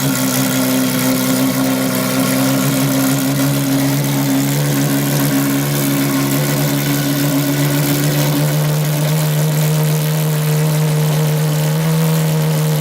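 Ferrari FXX's V12 engine running at a steady, held engine speed, its note shifting slightly about two-thirds of the way through.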